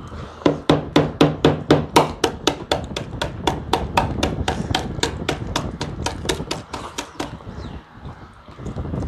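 A rapid, even series of sharp knocks or taps, about five a second. They are loudest for the first couple of seconds, then go on more weakly and stop about seven seconds in.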